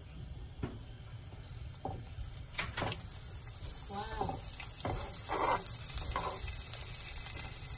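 Butter melting and sizzling in a nonstick frying pan around two scored abalone, the sizzle growing louder through the second half.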